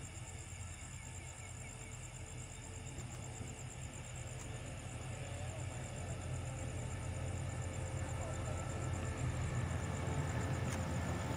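SRT QSY diesel-electric locomotive approaching at the head of an express passenger train. Its low rumble grows steadily louder as it nears.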